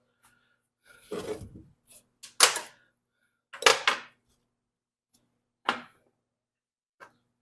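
Hard knocks and a short clatter of parts and tools being handled while a mower blade spindle is reassembled: a rattling scrape about a second in, then a few sharp, irregular knocks, the two loudest close together near the middle.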